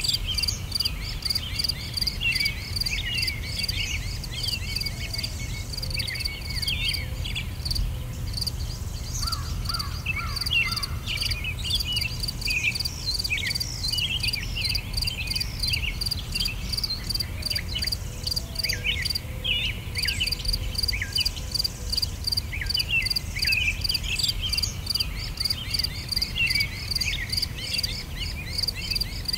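Steady nature ambience: a rapid, evenly pulsing insect chorus with many short bird-like chirps over it and a low rumble underneath.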